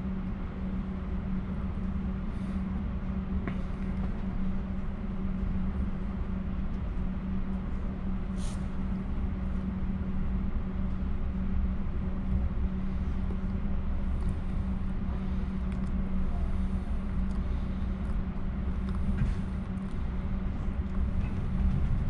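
Interior noise of a moving passenger train: a steady low rumble of wheels on track with a constant hum, and a few faint brief ticks in the first several seconds.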